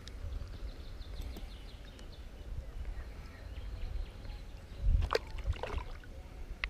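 Outdoor ambience on open water: a steady low rumble of wind and handling on the microphone, with a few faint short bird chirps. About five seconds in comes a bump, then two quick whistles that fall in pitch.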